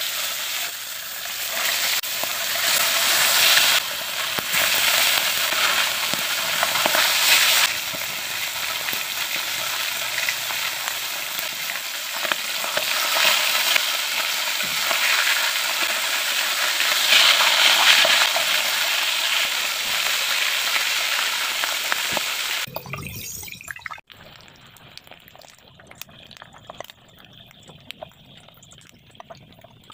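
Whole fish frying in hot oil in a pan: a loud, steady sizzle that swells now and then as the fish are turned with chopsticks. It stops suddenly about 23 seconds in, leaving a much quieter background.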